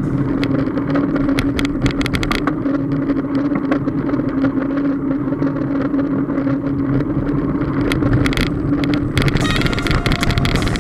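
Ride noise from a moving bicycle: a steady low hum with wind rumble and frequent short knocks and rattles.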